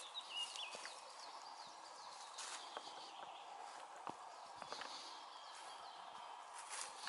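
Footsteps on a dirt forest path, a scattering of soft irregular steps, with birds singing faintly in the background and a short warbling phrase right at the start.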